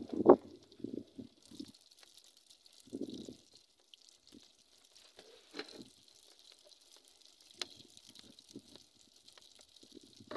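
Doughnut dough frying in hot oil in a saucepan: a steady sizzle with scattered pops, starting about a second and a half in after a few dull knocks as the dough goes in.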